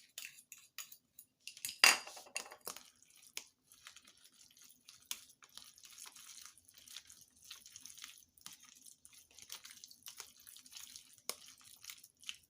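A spoon clinking and scraping in a bowl while stirring a mayonnaise-and-yogurt sauce, with many small light clicks and one sharper clink about two seconds in.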